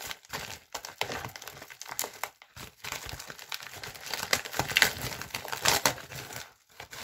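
A mailer package crinkling and tearing as it is opened by hand, in irregular rustling bursts, loudest about five seconds in.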